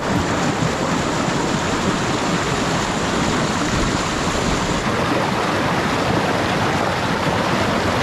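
Rushing water of a mountain stream and waterfall: a steady, loud, even noise that cuts in suddenly.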